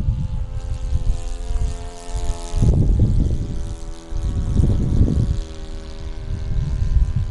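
Engine of a Falcon 56 radio-controlled model airplane running at a steady pitch, the note shifting slightly about two and a half seconds in. Heavy wind buffeting on the microphone.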